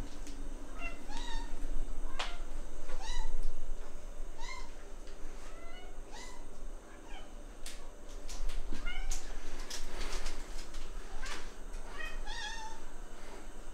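Longhaired house cats meowing repeatedly at the food pouch held over them, begging for food: short meows that bend up and down, about one a second. Around eight to ten seconds in there are a few sharp clicks.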